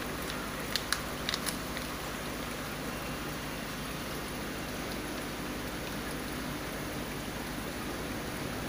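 Steady rush of water circulating through a saltwater aquarium system, with a few faint clicks about a second in.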